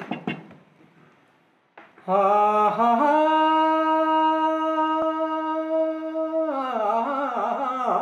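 A man singing unaccompanied, opening a local Kumaoni pahadi folk song. About two seconds in he starts one long held note that steps up a little a second later and is sustained for several seconds, then breaks into a wavering, falling phrase.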